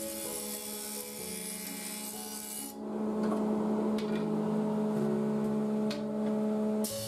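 Thickness planer cutting a thin wooden strip: a loud, grainy rasp starts about three seconds in as the strip meets the cutter head and stops abruptly some four seconds later as it leaves. Background music with steady changing notes plays throughout.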